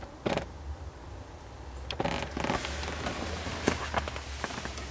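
Handling and rustling noise. A single knock comes a fraction of a second in, then from about two seconds in there is a rustling hiss with scattered sharp clicks.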